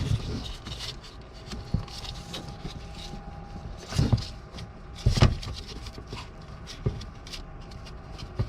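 Scattered clicks and knocks of hands working plastic wiring-harness connectors and their locking tabs on an engine computer (PCM), with the sharpest knocks about four and five seconds in.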